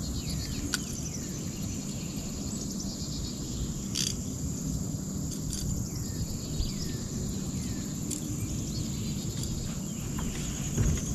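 Steady high insect drone with short falling bird chirps now and then over a low rumble, and a few sharp clicks, with more clicks and knocks near the end.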